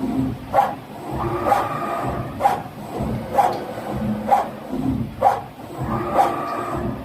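Skiving machine cutting fins from a copper block, working in a steady rhythm with a sharp stroke a little under once a second and a ringing tone between some strokes.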